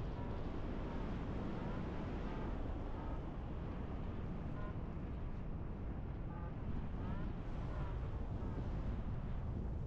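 Wind rushing steadily over the microphone of a camera on a flying paraglider's risers. Faint short high-pitched tones come and go in the background, a few of them sliding upward.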